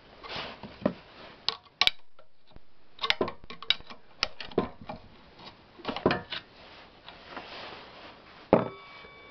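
Metal clicks, knocks and scrapes as the casing and parts of an old Ural-2 Elektron chainsaw are handled and worked on, in irregular bunches, with one sharp metallic clink near the end that rings briefly.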